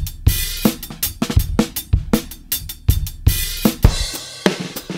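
Intro music with a driving drum beat: a steady stream of sharp drum hits over a sustained backing.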